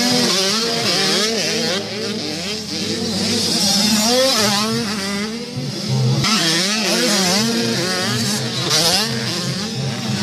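Several 85cc motocross bikes racing on a dirt track, their engines revving up and down, the pitches of different bikes rising and falling over one another.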